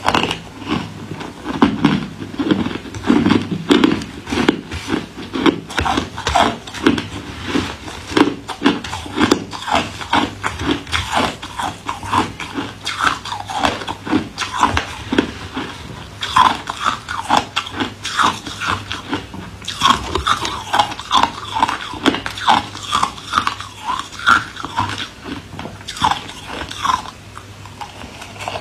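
A person biting and chewing ice: a continuous run of sharp crunches, a few a second.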